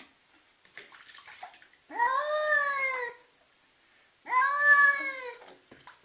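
Wet ginger cat yowling twice in protest at being bathed, each a long meow of about a second that rises and falls in pitch, heard as the word 'Davut'. Faint water sounds between the calls.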